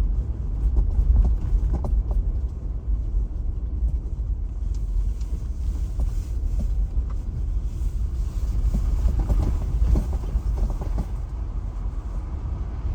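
A car driving, with a steady low rumble of engine and road noise, heard from inside the cabin. Scattered knocks and rattles come as it jolts over a bumpy road.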